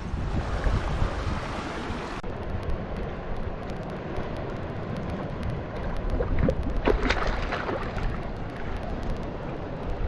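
Wind buffeting the microphone over river water, with a few short splashes about two-thirds of the way through as a mahseer is let go in the shallows.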